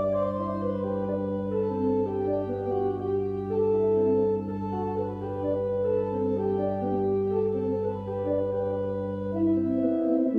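Organ postlude: slow-moving chords and melody over a long-held low bass note, which stops near the end while the upper notes carry on.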